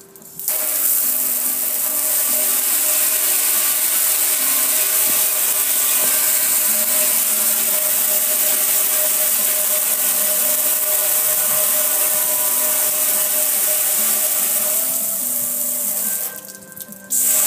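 Garden hose spray nozzle jetting water onto a metal gas grill: a steady hiss of spray that starts about half a second in and breaks off for about a second near the end before resuming.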